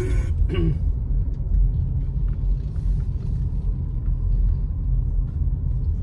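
Road noise inside a moving car's cabin: a steady low rumble of tyres and engine.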